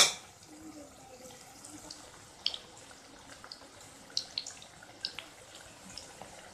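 Cubes of elephant foot yam deep-frying in hot oil in a pan: a sharp, loud sizzling burst right at the start as a piece goes into the oil, then a quiet frying hiss with scattered high pops and crackles.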